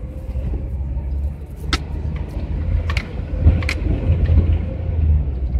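Low engine and road rumble heard inside the cab of a GAZelle van driving along a city street, with a few sharp clicks or rattles.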